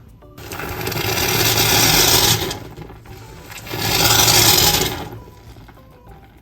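Warm water pouring in two bursts, the first about two seconds long and the second about a second and a half.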